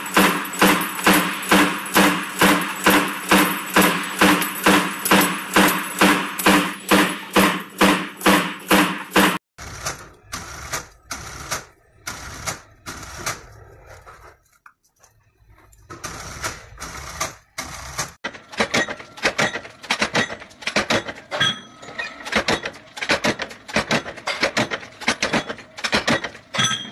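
Power press stamping sheet steel in a steady rhythm of about two strokes a second. It is followed by an industrial sewing machine stitching in short runs with a pause, then a faster, uneven run of metallic strokes from a machine working metal discs.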